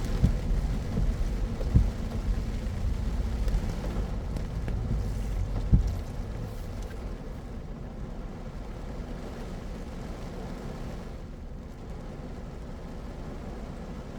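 Car driving on rain-wet city roads: a steady low rumble of road and tyre noise with a few thumps in the first six seconds, then quieter after about six seconds as the car eases off.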